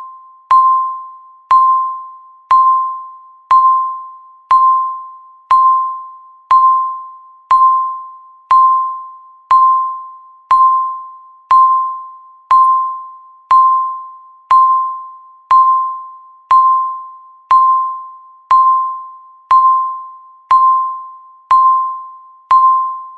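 Countdown timer beep sounding once every second: a single clear electronic ding that starts sharply and fades quickly, repeated at an even pace about two dozen times.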